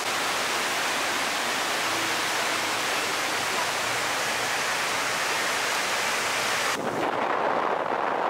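Steady rush and roar of a swollen river in flood. About seven seconds in it cuts suddenly to a duller rush of wind.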